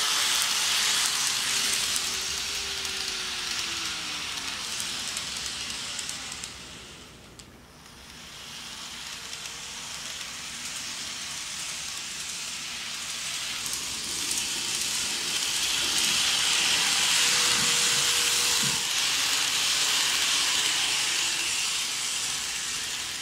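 Kato N-scale E233 model train running along its track: a steady hissing rush of wheels on rail with a faint motor whine. It dips briefly about a third of the way in and grows louder in the second half.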